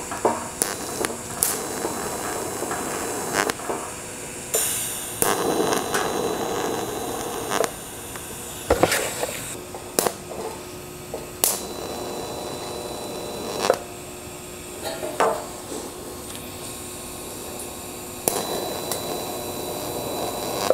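TIG welding arc on a thin sheet-metal fender seam: a steady buzzing hiss that runs in stretches of a few seconds, stopping and starting again many times, with sharp clicks in between as the seam is stitched with tacks.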